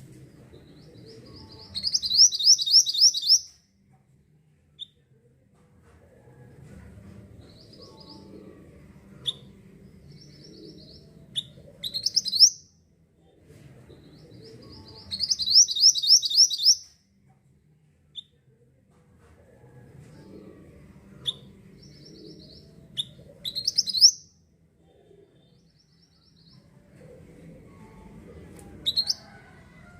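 Mantenan (minivet) bird song: twice, a fast high trill of about a dozen rapid notes lasting about a second and a half, with shorter sharp high call notes in between. A low background rumble runs under the quiet stretches.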